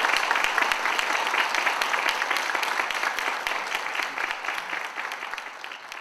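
Audience applauding, a dense spatter of many hands clapping that fades away over the last few seconds.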